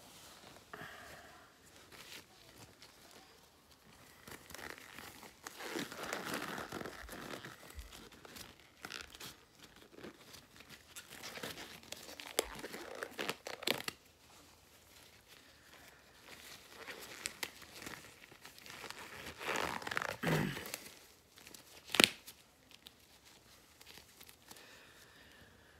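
Packaging crinkling and rustling as it is handled, in several irregular bursts. A single sharp click sounds about 22 seconds in.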